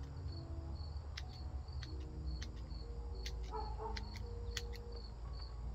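Small pruning shears snipping juniper twigs in a series of sharp clicks, over crickets chirping steadily about twice a second.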